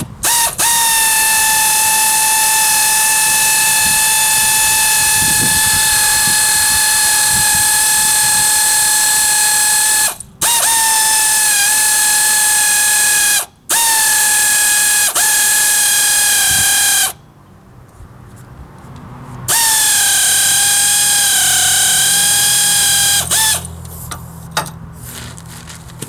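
Air ratchet spinning the centre bolt of a bolt-type puller to draw the crankshaft pulley off a Toyota 3S-FE engine. It runs with a steady high whine in four long bursts with short pauses between them, and its pitch dips now and then.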